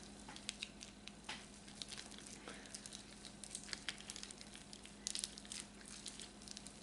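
Faint crinkling of a plastic sausage-roll wrapper as raw sausage is squeezed out of it by hand, with scattered small clicks, over a steady low hum.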